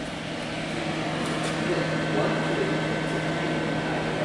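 Steady machinery hum: a constant low drone with a fainter high whine over it, and a few faint ticks about a second and a half in.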